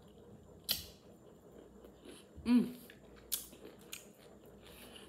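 Close-miked crunchy bites and chewing of a pickle slice, a few crisp crunches spread through. About halfway there is a short falling 'mm' of enjoyment.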